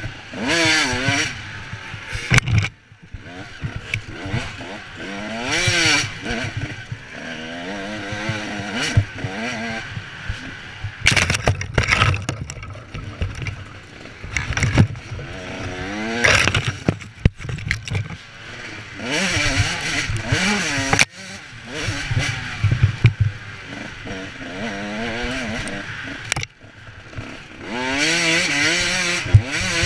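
Off-road race vehicle's engine revving hard and easing off again and again, its pitch rising and falling as it is driven flat out over a rough dirt trail. Occasional knocks and rattles from the rough ground and from brush hitting the vehicle.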